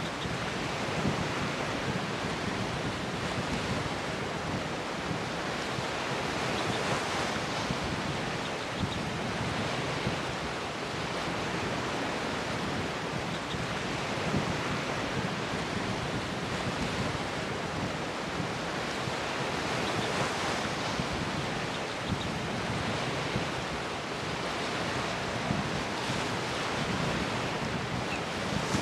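Ocean surf breaking and wind buffeting the microphone, a steady rushing noise with small surges.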